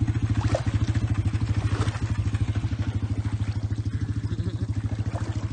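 ATV engine idling steadily with an even, fast pulse.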